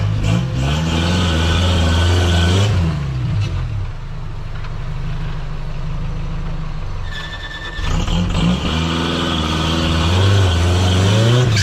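Off-road rock buggy's engine revving hard as the buggy crawls up over logs and stumps, in two bursts where the pitch swings up and down, first in the opening seconds and again from about eight seconds in, settling to a lower, steadier run in between.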